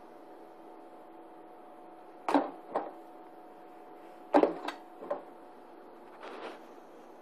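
Kitten knocking against and pawing at a cardboard shoebox on carpet: about five short knocks in two quick clusters, then a softer scrape near the end, over a faint steady hum.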